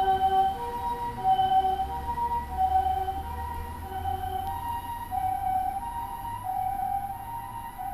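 Japanese ambulance's electronic 'harmonic' siren sounding its two-tone pee-po call, a higher and a lower tone taking turns about every half second, growing a little fainter toward the end. A vehicle engine rumbles low beneath it.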